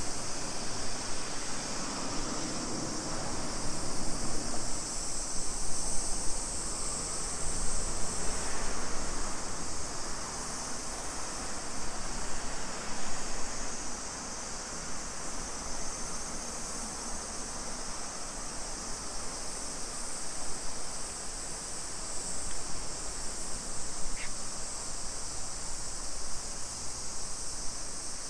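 Steady high-pitched insect buzzing that swells and fades slightly, over the low, even hum of street ambience.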